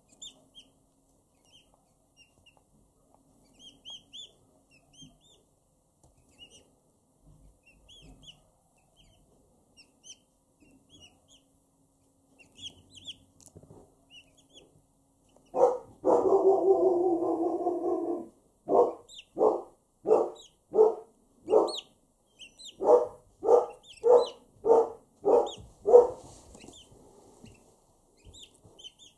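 Turkey poults and a chick peeping softly in short high chirps. About halfway through, a much louder animal call takes over: one call held for about two seconds, then a dozen short calls in quick succession, about two a second.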